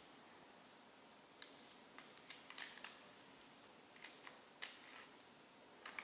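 Small, sharp, irregular clicks of a metal lock pick inserted into a clear acrylic practice padlock's keyway and working its pin stacks while a tension wrench holds the plug, the busiest and loudest cluster about halfway through.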